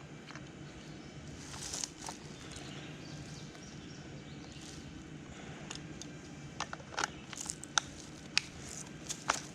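Outdoor sound: scattered sharp snaps and clicks, more frequent in the second half, over a steady low hum.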